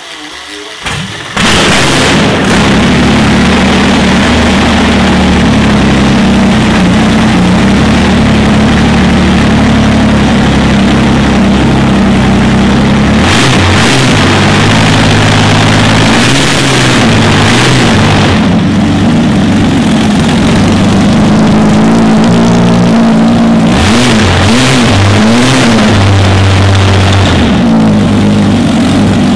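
V12 tank engine on a test stand starting up: a short crank, then it catches about a second in and runs loudly through short open exhaust stubs. Its throttle is blipped by hand in a series of short revs around the middle and again later.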